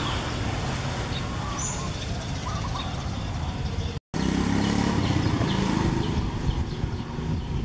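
Steady outdoor background rumble, like traffic or wind on the microphone, cut by a brief dropout about four seconds in and a little louder after it.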